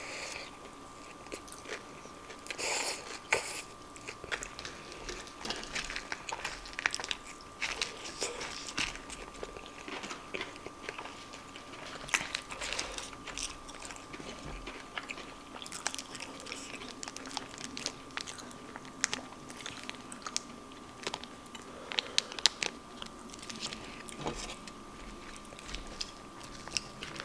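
A person chewing and crunching mouthfuls of animal style fries topped with crushed Xtra Hot Cheetos, close to the microphone, with many irregular sharp crunches. A faint steady whine runs underneath.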